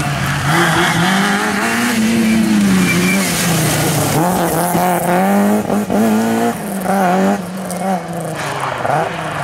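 Rally car engine at full throttle, revving up through the gears as it passes and pulls away. The pitch rises and drops sharply at each upshift, about three times in the second half. Tyre spray and rain hiss run underneath on the wet road.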